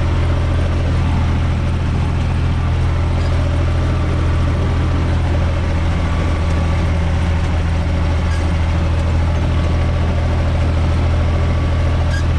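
UTB 445 tractor's diesel engine running at a steady, even speed as the tractor drives over tilled soil, heard from inside the cab as a loud, unchanging low drone.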